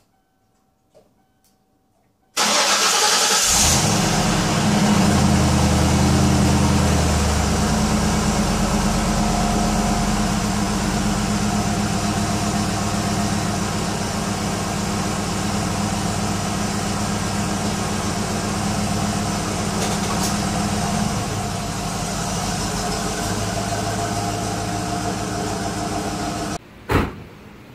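1995 Mustang 5.0 HO's 302 Windsor V8 running loud through exhaust with the mufflers replaced by straight pipe and the catalytic converters still in place. It comes in suddenly about two seconds in and is held at fairly steady revs for over twenty seconds, then drops away sharply with a click near the end.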